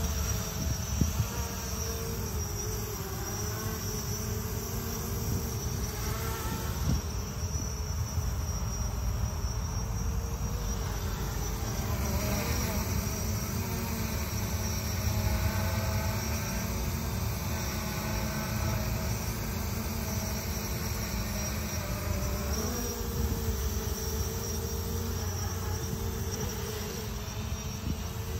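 Quadcopter drone's propellers buzzing out of view, a steady multi-toned hum whose pitch drifts up and down as it manoeuvres.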